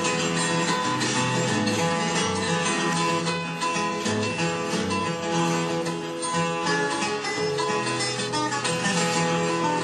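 Solo guitar fingerpicked in open G tuning, playing a country-blues instrumental passage.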